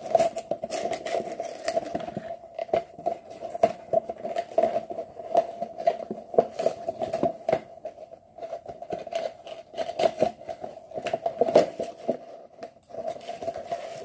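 Hands opening and handling a pack of twelve small firework tanks: irregular clicks, taps and rustles, over a steady faint hum.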